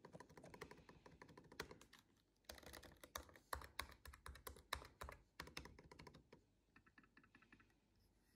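Keys of a MacBook Pro laptop keyboard being tapped in quick runs of quiet clicks, thickest in the middle, then a few fainter clicks near the end.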